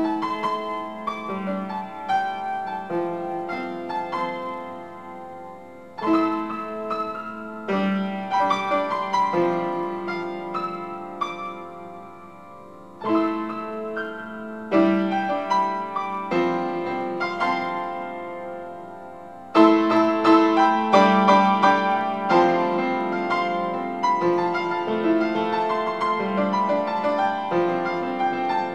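Piano being played with both hands: phrases of chords and melody, each opening with a loud attack and dying away. Fresh strong entries come about a fifth, half and two-thirds of the way through, and the last is the loudest.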